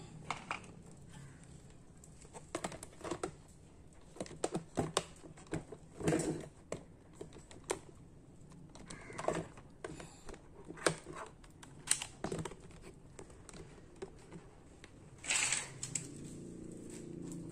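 Scattered light clicks, taps and knocks of plastic fog lamp covers and trim being handled, over a faint steady low hum, with a short scrape about fifteen seconds in.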